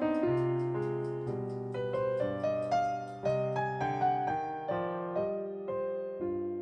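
Background music: a gentle piano melody with notes struck one after another, each fading away.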